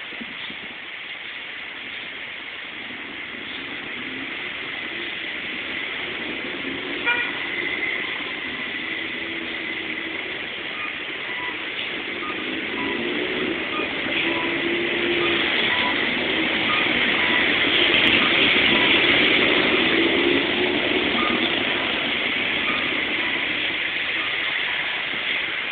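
Road traffic on a city street: passing cars and engines make a steady noise that swells in the middle, with a short car horn toot about seven seconds in. Faint regular pips sound through the second half.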